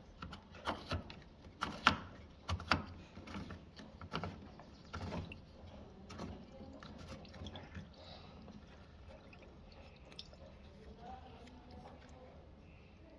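Water dripping and splashing, with irregular clicks and knocks over the first six seconds; after that it goes quieter.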